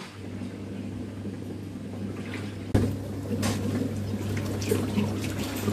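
Running water over a steady low electric hum, with a single sharp knock about halfway through.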